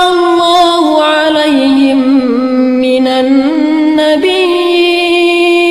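A man's melodic Quran recitation (tilawah), one voice drawing out a long ornamented phrase: the pitch steps down about a second in, wavers low, and climbs back up about four seconds in.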